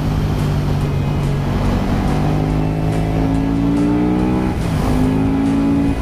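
KTM 1290 Super Duke R's V-twin engine pulling under throttle. Its pitch climbs slowly for about four seconds, dips sharply near the end as it shifts up a gear, then climbs again.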